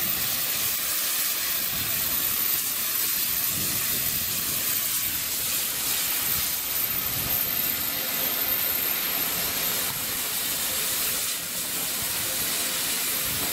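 Steady hiss of steam from a GWR Hall class steam locomotive, No. 4936, standing with its train.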